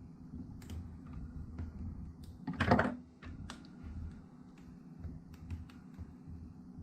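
Plastic display bezel of a Lenovo ThinkPad T490s being pressed onto the screen lid: scattered small plastic clicks, with one louder snap about two and a half seconds in as a clip catches.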